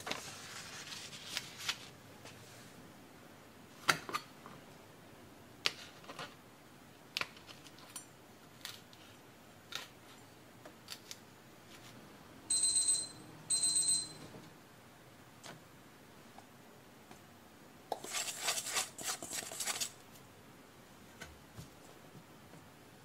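Scattered light taps and clicks of kitchen things being handled. Midway there are two short electronic beeps from a kitchen timer, signalling that the marinating time is up. Near the end comes a couple of seconds of dry rustling.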